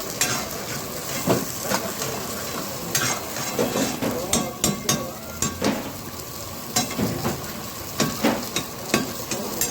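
Chicken frying and sizzling in a karahi, stirred with a metal spatula that scrapes and clinks against the pan in irregular strokes over a steady sizzle.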